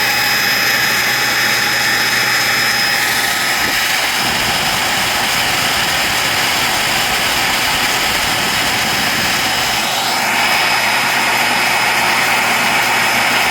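Dumore tool post grinder running at speed, its small stone taking a light pass across the hardened jaws of a three-jaw chuck: a steady high whine over a grinding hiss. A short rising whine and a slight rise in level come about ten seconds in.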